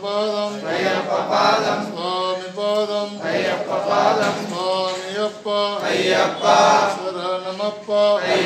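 A male voice chanting puja mantras in a sing-song recitation, short phrases separated by brief pauses, over a steady low hum.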